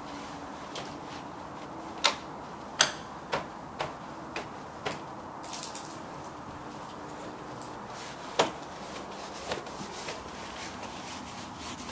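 Irregular sharp taps and knocks as a small child bumps and pats a house door and the vinyl siding beside it: a quick run of them in the first half and one more loud knock later.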